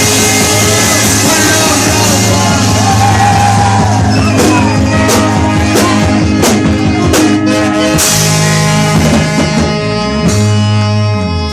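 Loud music played through a sound system: sustained bass notes with a run of sharp drum hits in the middle.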